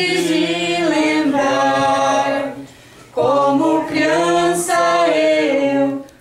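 A small group of women and girls singing a cappella, with long held notes and a short breath pause about two and a half seconds in before the singing resumes.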